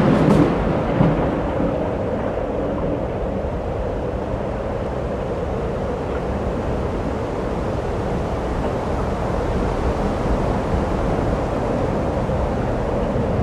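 Logo-reveal sound effects: a few sharp crashes of breaking rock in the first second, then a steady, thunder-like rumble.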